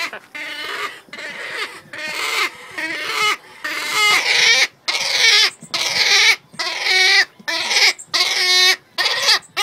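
Wood stork chicks squawking, a run of repeated calls about every half second that get louder from about four seconds in: the chicks begging for food during hand-feeding.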